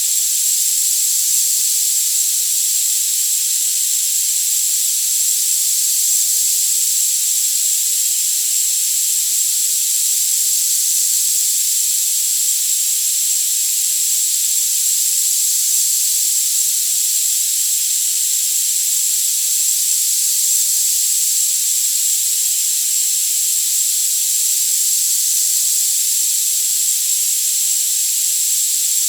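Tinnitus masking sound: a steady high-pitched hiss with all low sounds cut away, and one steady high tone sounding inside it.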